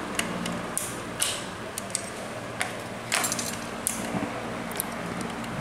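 Small clicks and rustles of hands fitting a cable onto the carburettor of a Honda GX35 four-stroke engine: sharp ticks of plastic and metal parts, with brief rustling scrapes about a second in and again about three seconds in, over a faint steady hum.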